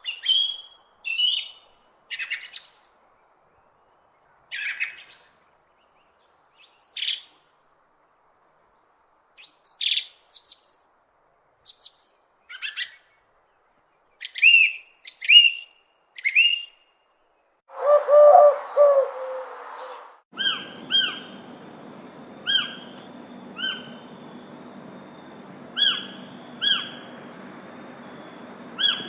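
Wild birdsong: a run of short chirps and song phrases separated by silent gaps. About two-thirds of the way through comes a lower call, and then, over a steady faint hiss, a bird repeats a short call about once a second.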